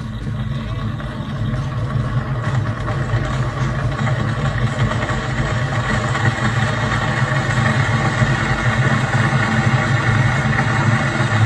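Froothie Optimum Evolve high-speed blender running steadily as it blends vegetable soup, a loud motor hum that builds a little over the first couple of seconds.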